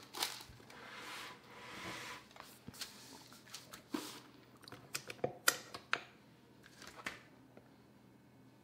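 Wax paper rustling as it is pulled off the roll and spread out, followed by a scatter of sharp clicks and knocks as the stand mixer's flat beater is unclipped and handled.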